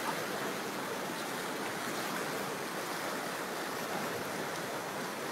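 Flash-flood torrent of muddy water rushing through a wadi: a steady, even rush of churning water with waves clashing into each other.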